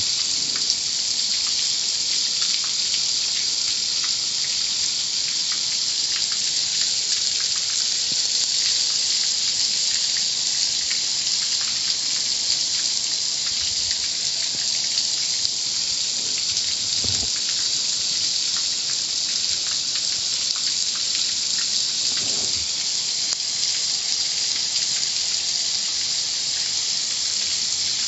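Car wash water jets spraying steadily, an even loud hiss of water that does not let up, with a couple of faint low thuds partway through.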